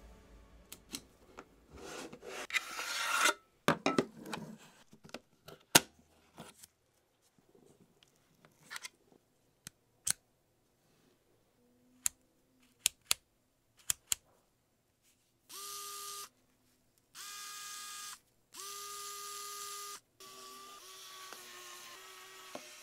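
Electric precision screwdriver: a few sharp clicks as its collar is turned, then its small motor whirs in three short bursts of about a second each. Near the end it runs longer and more quietly, with a wavering pitch, as it backs out the pentalobe screws of the MacBook's aluminium bottom case.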